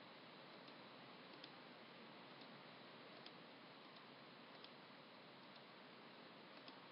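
Near silence: faint microphone hiss with a few soft, irregularly spaced computer mouse clicks.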